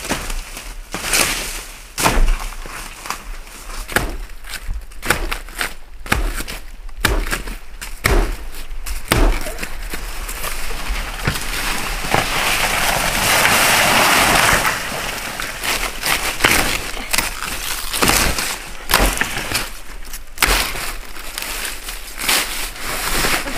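Dry leaves, twigs and stems crackling and snapping irregularly as someone moves through forest undergrowth, with a longer spell of heavy rustling about twelve seconds in.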